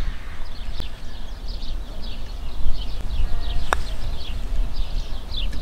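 Birds chirping over and over with a low steady rumble underneath; about two-thirds of the way through, a putter strikes a golf ball with one sharp click.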